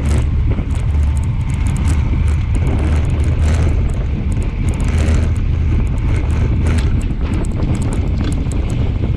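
Steady wind rumble buffeting the microphone of a handlebar-mounted action camera on a road bike at about 35 to 40 km/h, mixed with tyre and road noise from the bike. Scattered light clicks and rattles run through it.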